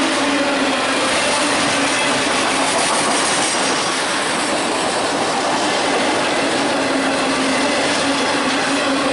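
Autorack cars of a long freight train rolling past close by: a steady, loud noise of steel wheels on rail, with a steady humming tone running under it.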